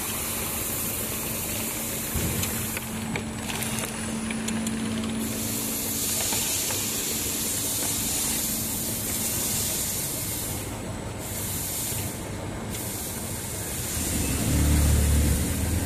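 HYTB2-150FB automatic double-sided labeling machine running, a steady hissing machine noise with a faint hum, and a low rumble that swells near the end.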